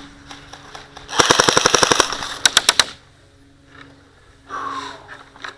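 Airsoft gun firing a rapid automatic burst of about a second, followed by four quick shots in a row.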